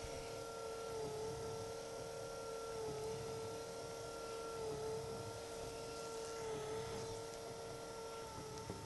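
Electric motor of an Optimum BF20 milling machine running steadily with a whine whose pitch dips slightly and regularly about every one and a half seconds, while the table moves the milled aluminium plate under a dial test indicator. A single small click comes near the end.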